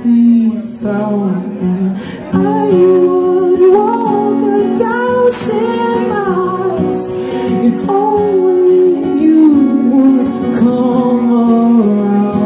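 A man singing long held, bending notes over an acoustic guitar, played live.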